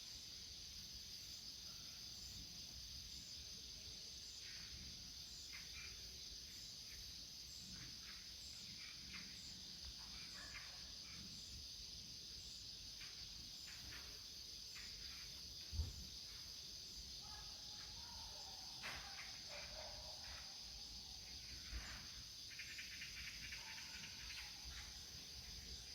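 Faint outdoor insect chorus: a steady high-pitched buzz with a regular soft tick above it, and scattered short chirps and calls. A single dull thump stands out about two-thirds of the way in, with a smaller one a few seconds later.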